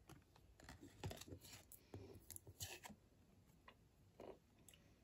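Faint handling of thin cardboard trading cards in the fingers: a run of small scrapes, flicks and clicks as one card is slid off the stack to show the next, then a few light ticks.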